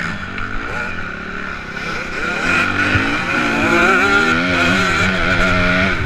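Motocross bike engine racing, heard from a helmet-mounted camera, its pitch rising and falling as the throttle opens and closes. It gets louder and climbs about halfway through.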